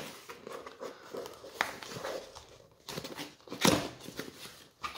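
Cardboard box being opened by hand: the tuck flap rubbing and scraping, with scattered light clicks and rustles and one louder scrape a little before the end.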